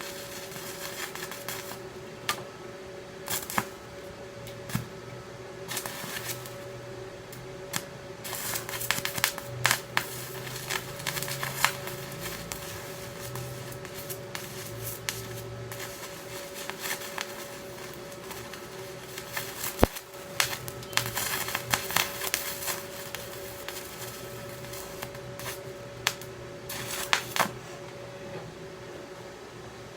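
Stick-welding arc crackling and sputtering in irregular bursts as a rod fills rusted holes in thin chair metal, over a steady low hum.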